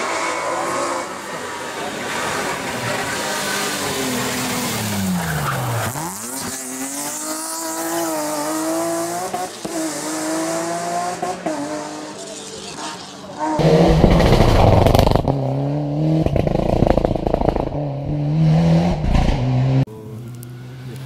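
BMW rally car engine at full throttle approaching and passing close by, its pitch dropping sharply as it goes past, then revving up and down through the gears as it pulls away. About two-thirds in, a louder, closer rally car engine takes over, accelerating hard with quick gear changes, and cuts off near the end.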